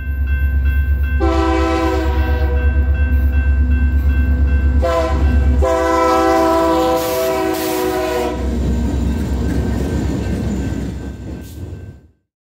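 Diesel locomotive's multi-chime air horn blowing for a grade crossing: a long blast, a short one, then a long one, over the low rumble of the approaching locomotive. A crossing bell rings steadily underneath, and everything fades out quickly near the end.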